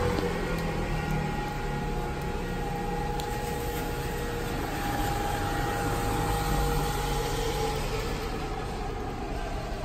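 Rain falling on stone paving, with the held, slowly wavering tones of an air-raid siren sounding over it; the siren's pitch slides near the end.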